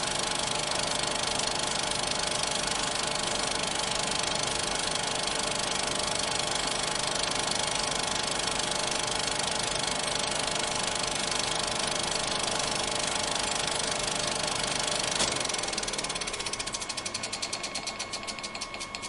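Cinema film projector running with a steady mechanical clatter. About fifteen seconds in, the clatter thins into separate clicks that slow down and fade as the mechanism runs down.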